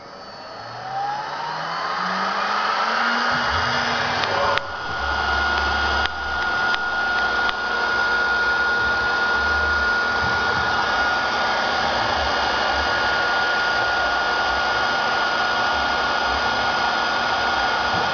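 The spindle motors of an OMNI MHC1325 three-spindle CNC router spin up with a rising whine over the first few seconds, then hold a steady high whine over the noise of the bits routing into a wood panel. A few sharp clicks come about four to seven seconds in.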